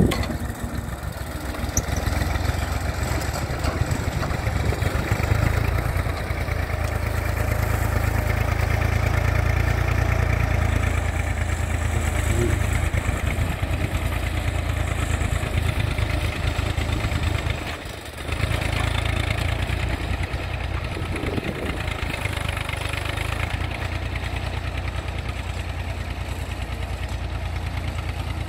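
IMT 558 tractor's diesel engine running steadily under load as it pulls a three-furrow 11-inch plough, a low rumble that fades slightly as the tractor moves away.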